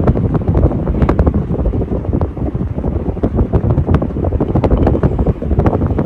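Casablanca Four Seasons III ceiling fan running, its blade draft buffeting the microphone as a loud, steady wind rumble with scattered light clicks.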